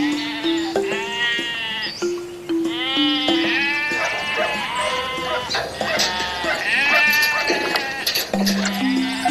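Sheep bleating, several long wavering bleats one after another, over background music with a plucked melody stepping up and down.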